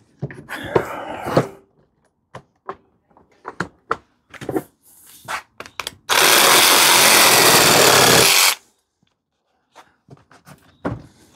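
Knocks and clicks from handling and clamping the workpiece, then a Parkside PSSSA 20 LI B2 cordless 20 V saw in sabre (reciprocating) saw mode runs loudly and steadily for about two and a half seconds as it cuts, and stops abruptly.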